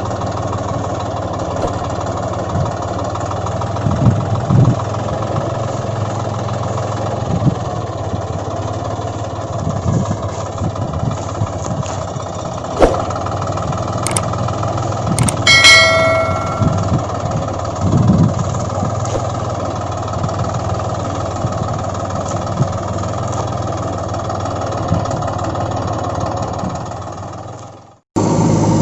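A heavy vehicle's engine, such as a JCB or farm tractor, running steadily, with scattered knocks and clanks. A short pitched beep sounds about halfway through, and the sound drops out just before the end.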